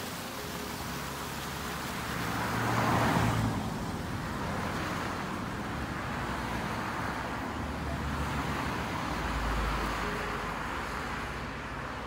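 Outdoor rushing noise of wind on the microphone over running water from a small moorland stream, swelling in two gusts, about three seconds in and again near ten seconds, with a deep rumble underneath.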